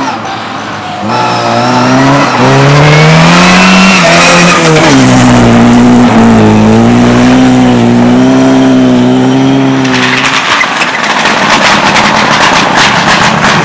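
Race car engine accelerating hard, its pitch climbing, dropping at a gear change, then held at steady high revs. Near the end the engine note fades under a rough, crackling noise.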